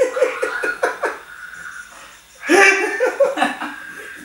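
Men laughing: a quick run of rhythmic 'ha-ha-ha' pulses in the first second, then a second burst of laughter about two and a half seconds in.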